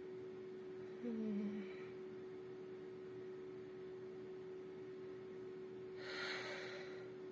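Steady hum of a computer, with a brief low vocal sound about a second in and a short breath through an itching nose near the end, building toward a sneeze.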